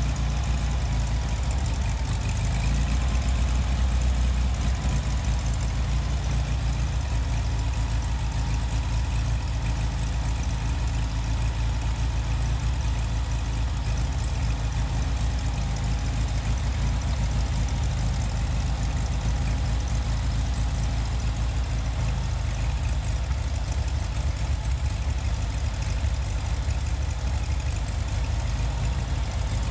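Freshly rebuilt 36 horsepower Volkswagen Beetle air-cooled flat-four engine idling steadily on its test run.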